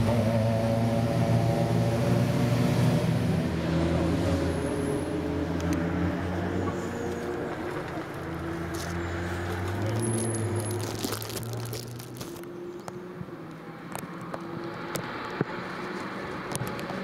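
Race car engines running, several engine tones at once, dying away about twelve seconds in. Scattered sharp clicks and clinks come through the second half.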